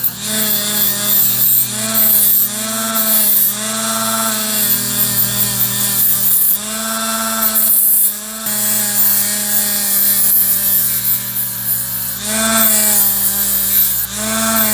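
An electric power tool running as rusty pliers are held against it for cleaning and polishing. Its pitch sags and recovers again and again as the work is pressed in, and it cuts off suddenly at the end.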